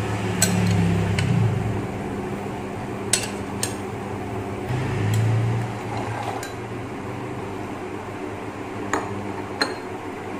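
Pumpkin cubes and lotus seeds tipped from bowls into a stainless-steel pot of hot water, with about six sharp clinks of a bowl and a metal ladle against the pot, over a steady low hum.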